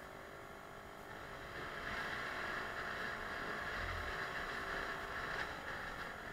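Suzuki Let's 4 50cc four-stroke scooter running on the move: a steady engine whine with a rushing noise that grows louder about a second and a half in and eases off near the end. A brief low bump comes about four seconds in.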